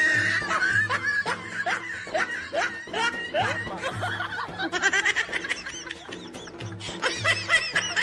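Laughter: a long run of short snickering laughs over background music with a steady low pulsing beat.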